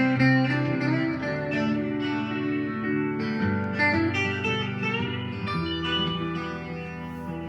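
Guitar music: a melody of ringing plucked notes, some of them sliding from one pitch to the next.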